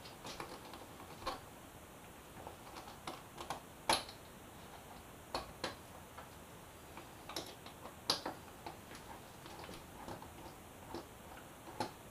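Scattered light clicks and taps, irregularly spaced, of a hand tool working bolts into a plastic motorcycle side fairing, with two louder clicks about four and eight seconds in.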